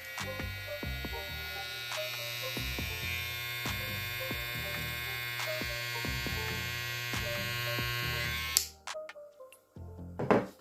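Cordless hair trimmer running with a steady buzz, switched off about eight and a half seconds in with a click. Background music plays underneath.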